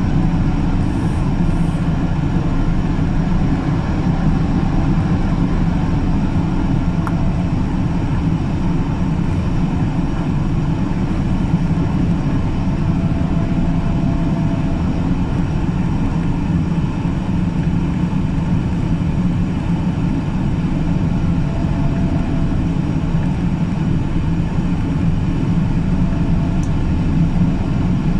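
Steady cabin noise of a Boeing 777-200ER airliner on final approach: an even, low rumble of engines and airflow heard from inside the cabin, with faint tones that come and go a few times.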